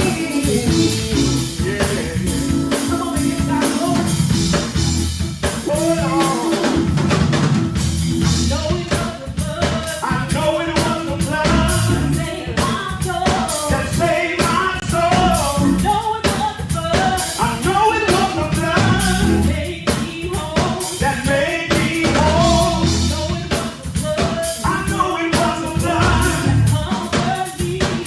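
Gospel praise and worship music: singing over a drum kit and bass, with a steady beat.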